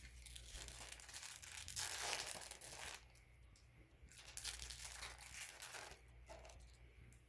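Foil trading-card pack wrapper being torn open and crinkled by hand, in two spells of crackly rustling: the louder one about two seconds in, a second from about four to six seconds in.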